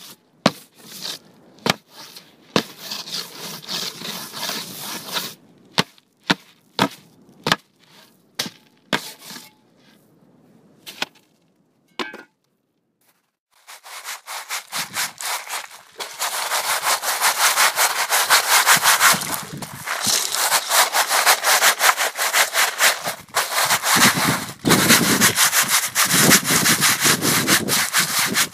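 Scattered sharp knocks and clicks with short bursts of rubbing, then, after a brief pause about halfway, fast continuous scraping of a hard surface, stroke after stroke.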